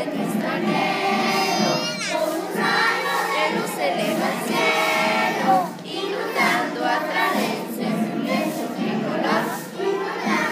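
A crowd of young children's voices, with group singing in the mix.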